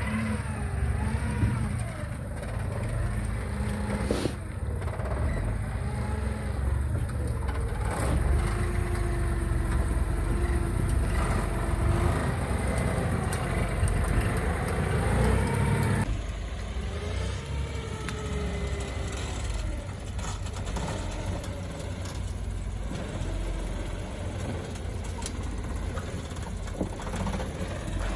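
Suzuki Jimny's engine revving up and down as the 4x4 crawls over boulders, with a few sharp knocks.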